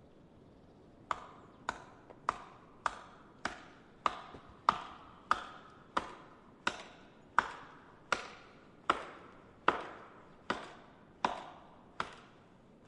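Axe chopping wood: a steady series of about seventeen sharp strikes, roughly one every two-thirds of a second, each with a short ring, starting about a second in.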